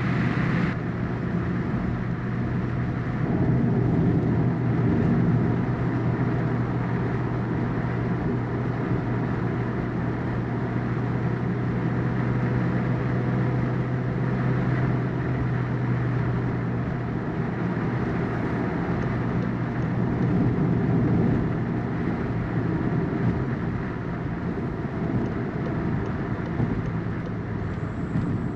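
2019 VW Golf R driving at road speed, heard from inside the cabin: a steady engine drone over continuous tyre and road noise.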